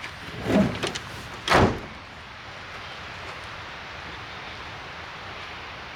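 A pickup truck's door opened and slammed shut, two sharp knocks in the first two seconds with the loud, deep slam last, as the driver gets in to pull the tree rope.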